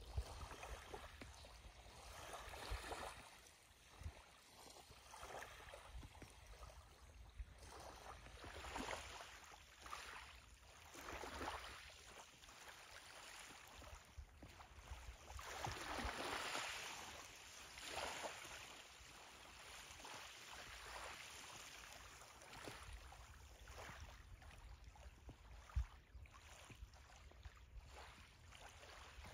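Small waves lapping gently at the water's edge, a faint wash that swells and fades every few seconds, over a low steady rumble.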